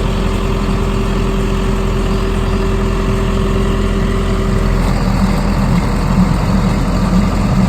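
John Deere tractor engine running steadily while pulling a lawn aerator. A steady tone in its note stops about two-thirds of the way through, and a lower throb grows stronger after that.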